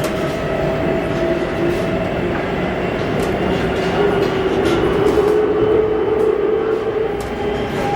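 C2-class tram heard from inside while under way between stops: steady running noise of wheels on rail, a motor whine that drifts in pitch, and light clicks from the track.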